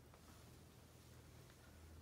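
Near silence: room tone with a steady low hum and a couple of faint ticks.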